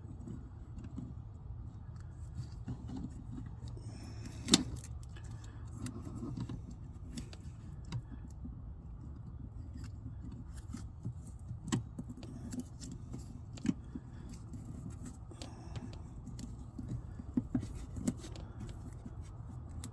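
Small clicks and rattles of hands working with speaker wiring and electrical tape, scattered unevenly with one sharper click about four seconds in, over a steady low hum.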